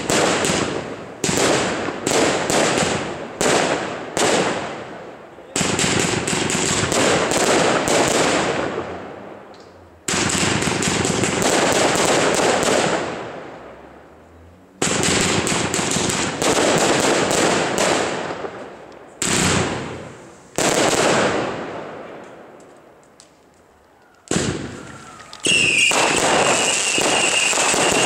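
Category 2 consumer firework cakes firing: rapid volleys of sharp shots and burst bangs, in batches separated by brief lulls. Near the end a steady high whistle joins in.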